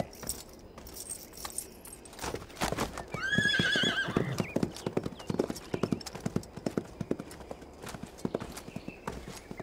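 Horses' hooves knocking steadily on dusty ground. About three seconds in, one horse gives a long, wavering whinny of about a second and a half, the loudest sound here.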